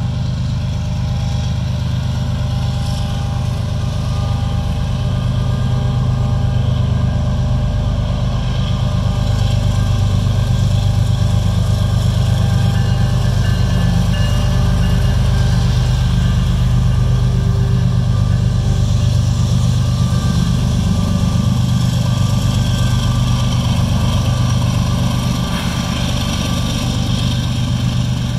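Union Pacific diesel locomotive engines running at a steady, constant throttle with a deep low hum, as a freight train moves along the main line.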